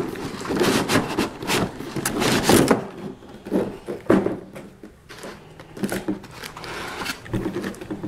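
Cardboard box being opened by hand: the flaps and packaging inside scraping, rustling and knocking in irregular bursts.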